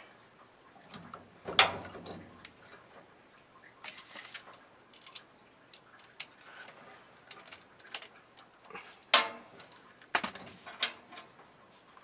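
Scattered clicks, taps and clinks of a hand tool and wires being handled against a furnace's sheet-metal cabinet while a ground wire is reattached. The sharpest knocks come about a second and a half in and in a cluster near the end.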